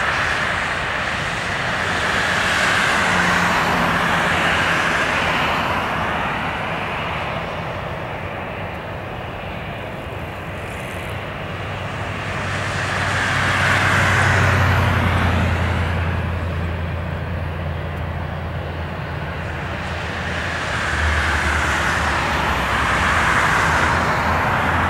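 Jet engines of an Airbus A320 running as it rolls out along the runway after landing. A steady noise swells and fades in slow waves, with a low hum coming in about halfway through.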